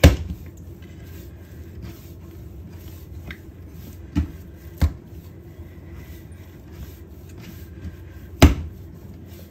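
Dough for rougag being kneaded by hand, with sharp slapping clacks from the dough: one at the start, two about four to five seconds in, and the loudest near the end. These little clacks are what the cook takes as the sign that the dough is becoming well kneaded.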